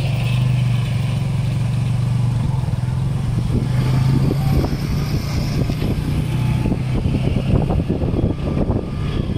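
A motorcycle engine running steadily at low speed, with wind rumbling on the microphone from about four seconds in.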